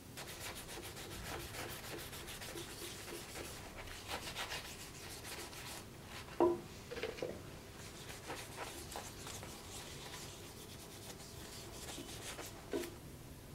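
A small carved metal knife pommel being scrubbed and rubbed by hand with an abrasive pad, in quick back-and-forth strokes. There are two sharp knocks, one about halfway through and one near the end.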